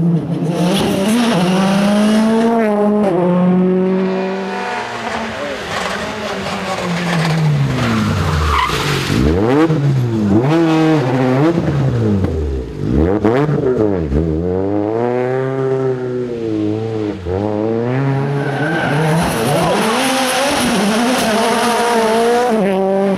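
Rally cars driving hard past at speed, one after another, engines revving high. The engine pitch climbs through the gears and swoops down sharply as each car passes close by.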